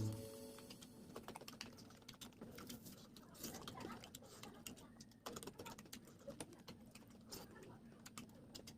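Faint eating sounds: irregular small clicks and smacks of someone chewing and handling food.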